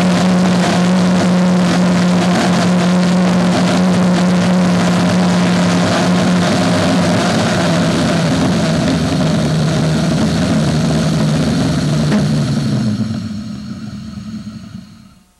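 Gluhareff G8-2 propane-fuelled pressure jet engine running with a loud, steady rushing noise over a low, even tone. About 13 seconds in it winds down and dies away as the engine is shut off.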